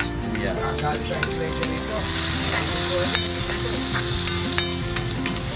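Chopped onion and tomato going into hot oil with turmeric and garlic in a frying pan, sizzling while a metal spatula stirs and scrapes with short clicks against the pan. The sizzle grows louder about two seconds in.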